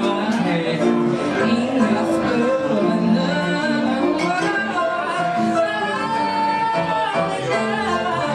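Male vocalist singing a soulful pop ballad live into a handheld microphone over piano accompaniment, holding long notes.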